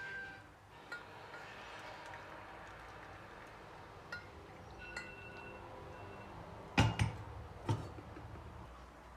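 Dishes and glassware clinking: a few light clinks, one with a short ring, then a few louder knocks about seven seconds in.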